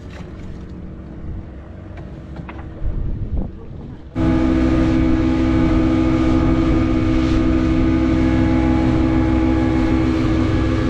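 Fishing boat engine running steadily under way, a loud, even drone with a strong fixed pitch that starts abruptly about four seconds in. Before that there is a quieter low rumble with a couple of brief louder sounds.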